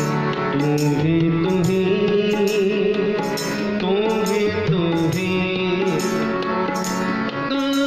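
Sikh kirtan: a devotional hymn sung over held, stepping harmonium tones, with tabla keeping a steady beat.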